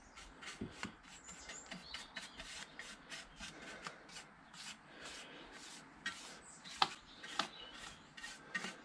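Small brush stroking rust-converter liquid onto a rusty steel motorcycle exhaust heat shield: quick scratchy rubbing, about four strokes a second. One sharper tap comes about three-quarters of the way through.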